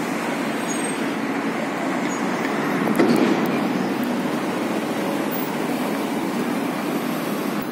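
Steady traffic noise from vehicles in the street, with a short knock about three seconds in.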